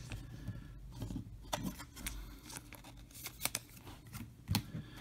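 Trading cards and card-stock packaging being handled: scattered crisp clicks, snaps and light rustles, a few sharper ones near the middle and toward the end.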